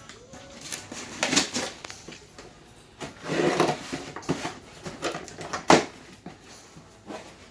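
A cardboard shipping box being cut open and unpacked by hand: a blade working through the packing tape and the flaps being pulled open. Irregular scraping and rustling, with a few sharp knocks, the loudest about two-thirds of the way through.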